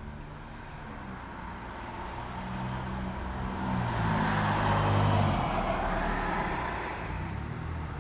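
A motor vehicle passing by: engine and road noise grow louder to a peak about five seconds in, then fade away.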